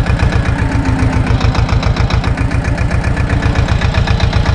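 SAME tractor's diesel engine running steadily under way, a fast, even low chugging, heard close up from the driver's seat.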